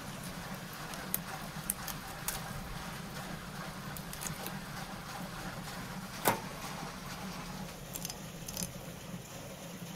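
Knife cutting raw salmon on a wooden board: soft wet cutting and scraping with scattered light clicks, and one sharper click about six seconds in.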